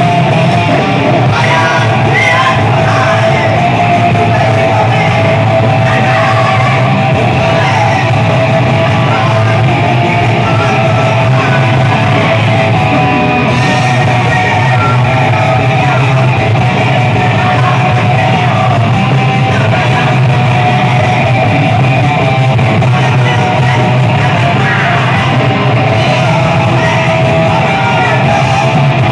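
Thrash metal band playing live and loud: distorted electric guitar and drums, with a woman's shouted vocals.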